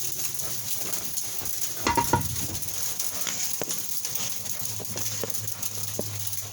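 Sleet pattering and ticking steadily on frozen surfaces, with a louder clatter about two seconds in.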